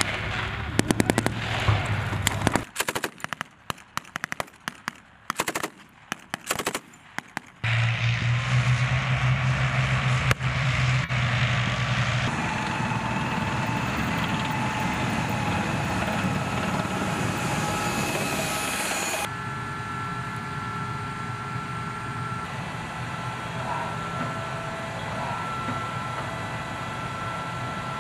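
Rapid gunfire: bursts of shots in quick succession for the first seven seconds or so. Then the steady running of an M1 Abrams tank's gas-turbine engine, with a steady high whine over a low rumble, changing abruptly twice.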